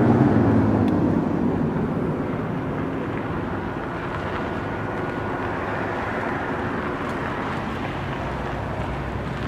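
Federal Signal Thunderbolt 1000T outdoor warning siren winding down, its falling tone fading out over the first two seconds. After that, a steady outdoor rushing noise remains.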